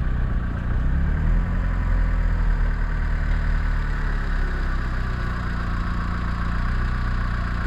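Vehicle engine running steadily, a low hum with an even, unbroken level throughout.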